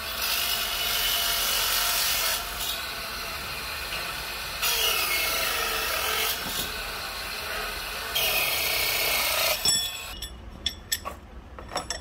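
Brass stock pressed against the motor-driven wheel of a small bench machine in a series of harsh metal-working strokes, each one to two seconds long. Near the end, a run of light sharp metallic clinks as brass pieces are handled.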